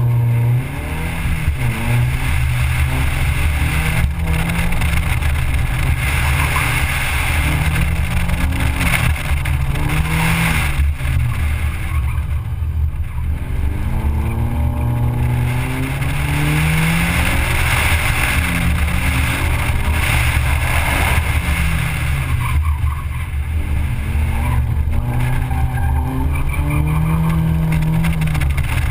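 Car engine accelerating hard and easing off again and again during an autocross run, its pitch climbing and dropping every few seconds as the car works through the cones.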